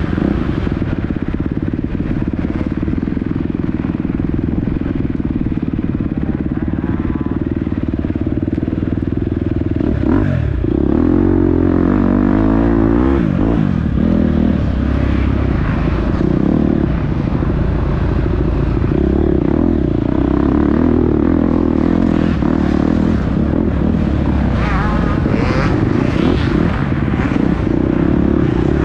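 Dirt bike engine running hard in an off-road race, its revs rising and falling with the throttle, most noticeably about ten to fourteen seconds in.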